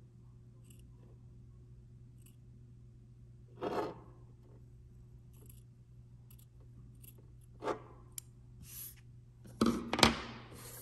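Duck-billed appliqué scissors snipping sheer cup lining close to a seam, a few quiet cuts spread out with two slightly louder ones, then a louder burst of handling noise near the end.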